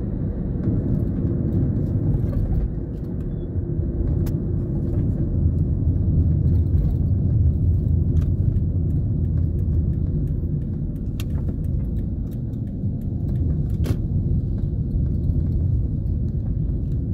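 Car driving, heard from inside the cabin: a steady low rumble of engine and road noise, with a few faint sharp clicks.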